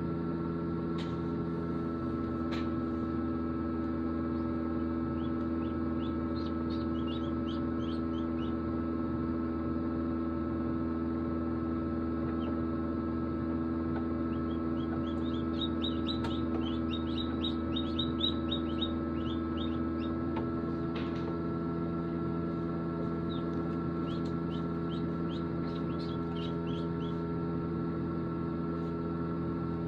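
Steady hum of an egg incubator running, with newly hatched ducklings peeping in three runs of quick, high peeps.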